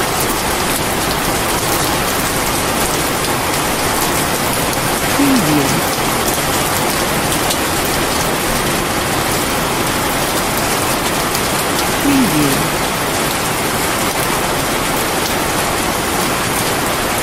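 Steady heavy rain, a dense even hiss. A voice watermark saying "preview" sounds briefly about five seconds in and again about twelve seconds in.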